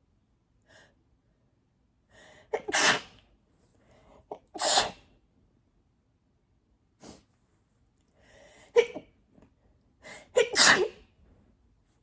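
A woman's allergy sneezing fit, set off by cat hair: four sneezes about two to four seconds apart, each with a quick intake of breath before it.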